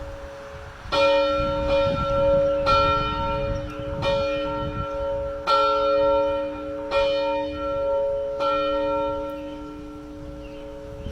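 A single church bell rung repeatedly, a loud stroke about every second to second and a half from about a second in, its tone ringing on between strokes.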